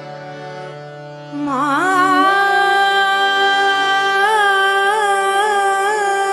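A woman singing a Bengali devotional song. About a second and a half in, her voice slides in and holds one long note with small wavering ornaments, over a steady sustained instrumental accompaniment.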